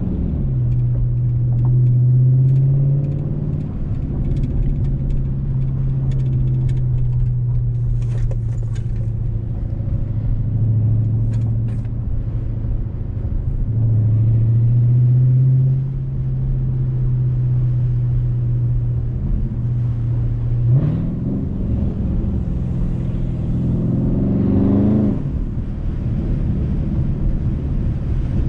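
Tuned 2020 Dodge Charger Scat Pack Widebody's 6.4-litre HEMI V8 through a mid-muffler-deleted exhaust, droning steadily while cruising. It swells a couple of times under throttle, and near the end it rises in pitch through a gear before dropping back at a shift.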